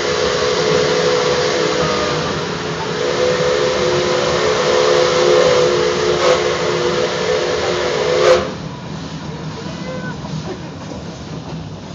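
A 4-4-0 steam locomotive's whistle blowing one long blast of about eight seconds: several steady notes sounding together over a steam hiss, heard close from the car behind the tender. The blast cuts off sharply, leaving the quieter run of the train.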